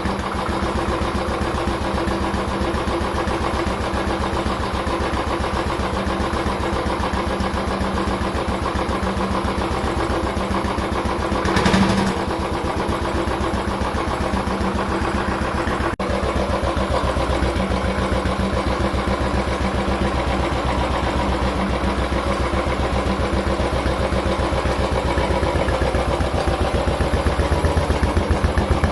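Royal Enfield Classic's single-cylinder engine idling through its exhaust with a steady, even beat. About twelve seconds in there is a short louder burst, and the beat grows a little louder near the end.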